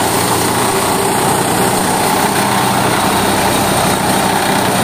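Small engine driving a portable double-blower rice thresher, running steadily at a constant loud level, with the threshing drum and blower fans turning.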